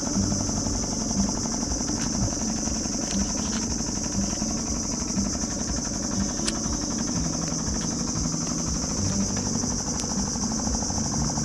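Small boat engine idling steadily while it warms up before setting off, with a constant high-pitched drone above the low pulsing. A few faint clicks, one of them as a lighter is worked about six seconds in.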